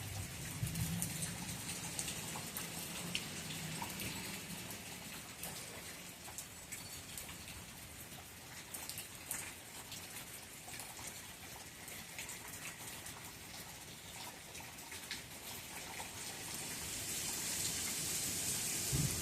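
Rain falling, with many separate drops ticking. A low rumble fades over the first few seconds, and the wind builds to a rising hiss near the end.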